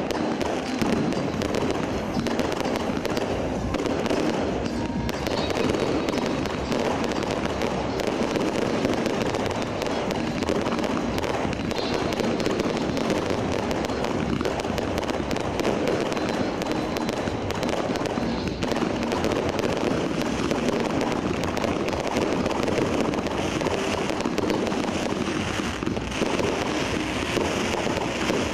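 Fireworks display going off in a dense, unbroken barrage of bangs and crackling.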